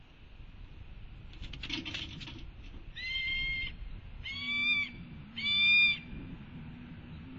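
Juvenile red-tailed hawk giving three high-pitched, drawn-out begging calls, each just over half a second, the last one loudest. A brief rustle comes before them, about two seconds in.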